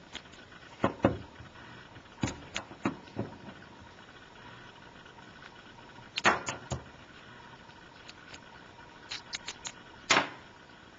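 Irregular clicks and knocks of small parts and hand tools being handled, in small clusters with a faint steady hiss between.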